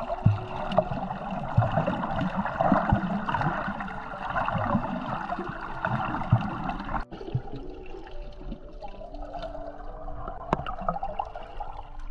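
Water heard through a submerged camera while snorkeling: a steady bubbling, churning wash with scattered clicks and knocks. It cuts off abruptly about seven seconds in and carries on quieter.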